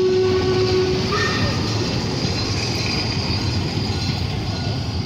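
A narrow-gauge passenger train's carriages rolling past at low speed, a steady rumble with clacking from the wheels and rails. A steady high tone sounds over it and stops about a second in.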